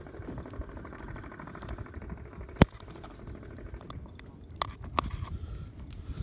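Long-nosed pliers working a hook free from a largemouth bass's mouth: small clicks and scrapes over a low rumble, with one sharp click about two and a half seconds in and two more clicks near the end.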